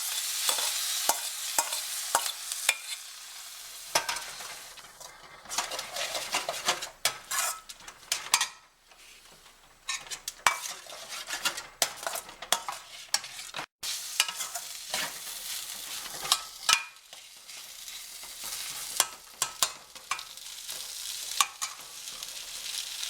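Spatula stirring and scraping a pan of cooked beans and crumbled toor dal being stir-fried in oil, with frequent sharp clicks of the spatula against the pan over a light sizzle. The sound drops out for an instant partway through.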